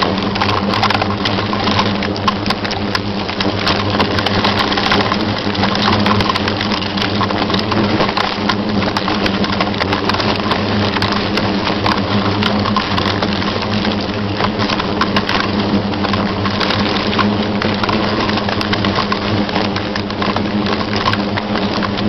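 A swarm of wasps buzzing close to the microphone in a steady low hum, with many small ticks scattered through it.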